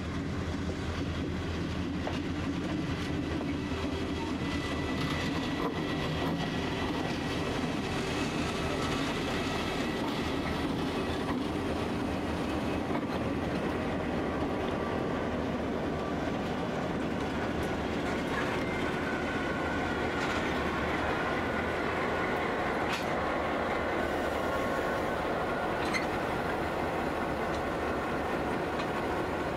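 Diesel locomotives running steadily as the consist rolls slowly along the siding, a continuous engine drone with wheel-on-rail noise. Thin high steady tones join in about two-thirds of the way through.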